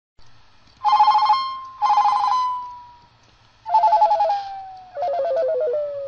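Comic "dying phone" sound effect: an electronic warbling telephone ring in four short bursts, two rings, a pause, then two more at lower pitch. The last ring slides down in pitch as it fades out, like a phone running out of power. A faint low hum runs underneath.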